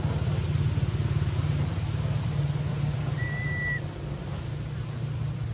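Steady low rumble of an engine running, with a fine rapid pulse. A short, thin high tone comes in about three seconds in.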